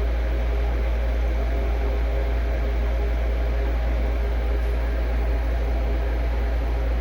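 Steady low hum with a fan-like whir, unchanging throughout.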